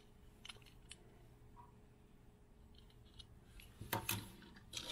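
Small die-cast toy cars being handled, with faint scattered clicks, then a few louder sharp clicks and clatter near the end as cars knock against each other.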